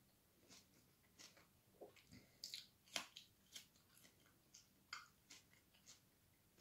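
A person chewing and crunching food close to the microphone: irregular faint crunches and mouth clicks, the loudest about three seconds in.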